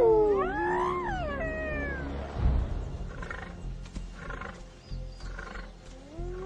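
Spotted hyenas calling with sliding whoops that rise and fall in pitch, several voices overlapping, fading out about two seconds in. A low thud follows, then a run of short grunts about once a second over a low music bed.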